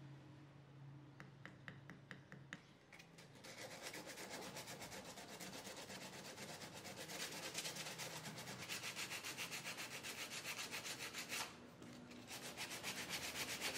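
Sandpaper rubbed by hand in quick back-and-forth strokes over a wooden block, smoothing a screw hole filled with cotton and hardened super glue flush with the wood. It pauses briefly near the end, then resumes. A few faint ticks come before the sanding starts.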